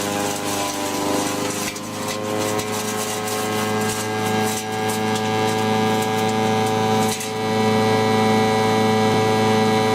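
Homemade wood chipper running steadily on its engine, with irregular crackling of wood being chewed up. The engine's pitch sags briefly a second or two in, and it gets louder after about seven seconds.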